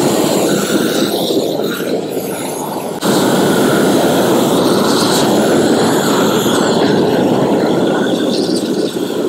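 Propane roofing torch burning with a steady rushing noise as its flame melts torch-down roofing membrane onto a concrete wall cap. The flame noise gets louder about three seconds in.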